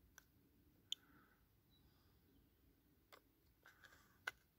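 Spot welder firing through handheld copper electrode pens, tacking nickel strip onto lithium-ion cell tabs: a few sharp snaps, the loudest about a second in and near the end, with fainter ones just after the start and about three seconds in.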